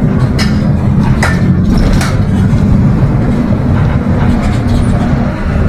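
Mercedes-Benz OF 1721 BlueTec 5 bus's diesel engine running steadily, with body rattles and a few sharp knocks in the first couple of seconds.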